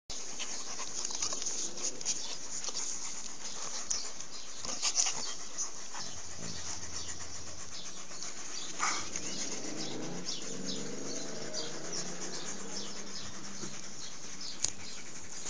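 Alaskan malamute panting close to the microphone, with scattered crackles and clicks over a steady hiss.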